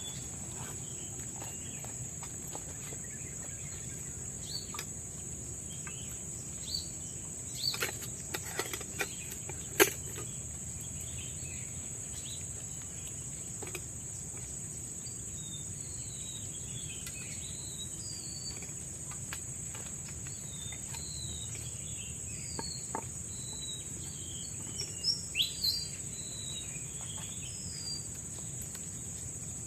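Tropical forest ambience: a steady high-pitched insect drone with scattered short bird chirps. A few sharp clicks or snaps come about eight to ten seconds in, the loudest near ten seconds, and another cluster comes near twenty-five seconds.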